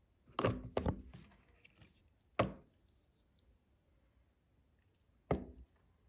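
A serving ladle scooping thick matar paneer curry and knocking against the bowl: two quick knocks near the start, one about two and a half seconds in, and one near the end.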